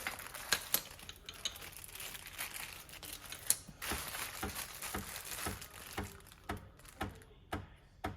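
Breville espresso machine clicking with the steamer switched on, a series of sharp clicks that settle to about two a second in the second half, over a faint hiss in the first half.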